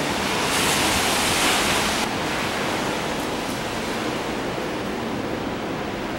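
Steady hiss of rain falling outside. It is louder and brighter for the first couple of seconds, then drops suddenly to a softer, even hiss.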